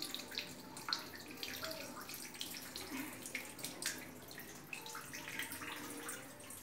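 Water running from a hose and splashing in a small tiled bathroom, with scattered light knocks and clatters.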